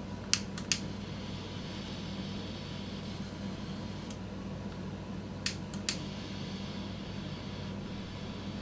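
Steady low hum and faint hiss, with a few sharp clicks and taps of hand tools working on the scooter's wheel rim: a cluster in the first second and another about halfway through.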